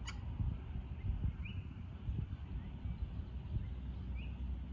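Low wind rumble on the microphone, with two short bird calls, about a second and a half in and again near the end.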